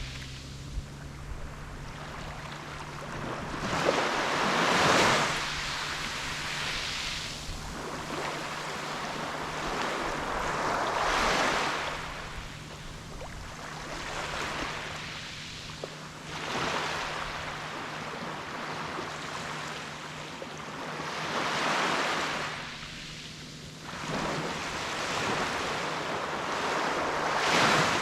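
Small sea waves breaking and washing up a beach, the surf swelling and fading about every five to six seconds, with a faint steady low hum underneath.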